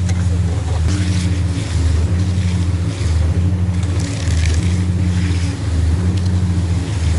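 Concrete pump truck running under load, a loud diesel drone that shifts in a regular cycle about once a second as the pump strokes.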